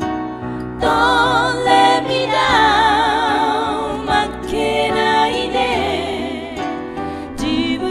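A woman singing a slow ballad with vibrato, accompanied by nylon-string guitar and piano; after a short instrumental moment the voice comes in about a second in.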